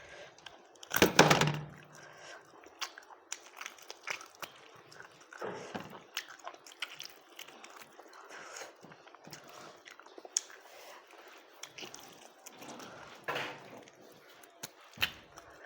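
Close-up eating sounds: chewing mouthfuls of rice, with many small wet clicks of the mouth. There is a loud thump about a second in.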